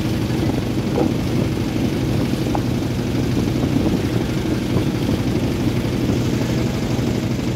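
Motorboat engine running steadily, a constant drone with no change in speed.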